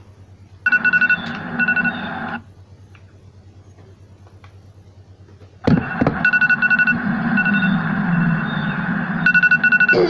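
Instrumental intro of a backing track with rapid trilling high tones in short repeated groups. It plays for under two seconds, stops, and starts again a little over halfway through.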